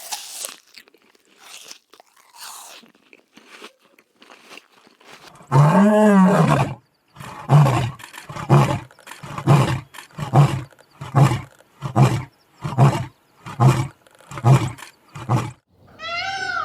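Lion roaring: one long roar about five and a half seconds in, then a run of about ten shorter grunting roars, a little under a second apart.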